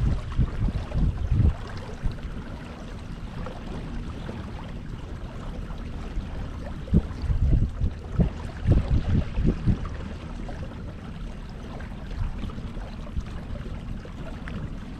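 Wind buffeting the microphone in uneven low gusts over water noise from a kayak on open water, with the strongest gusts between about seven and ten seconds in.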